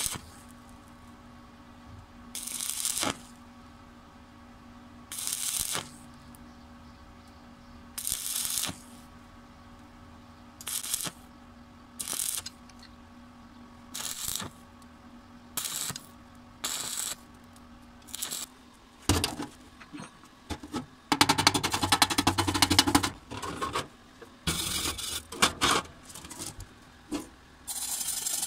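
Stick-welding arc crackling in short bursts of under a second, every two to three seconds, as the electrode is struck and stopped again and again to build up weld across a hole in steel plate; a low steady hum runs between the bursts. In the last third, a wire brush scrubs the fresh weld in quicker bursts of scratching.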